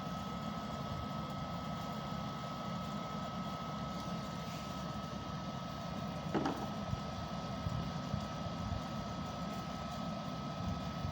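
Steady low background rumble with a thin, constant high tone running through it, and one brief faint sound about six seconds in.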